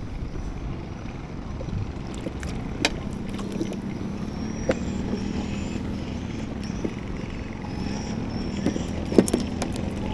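Steady low hum of a boat engine on the river, with scattered sharp clicks and a louder knock near the end as fishing tackle is handled in a wooden boat.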